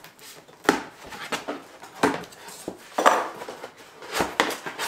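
Cardboard box flaps and packing inside being pulled open and rummaged through: irregular rustling and scraping bursts, loudest about three seconds in.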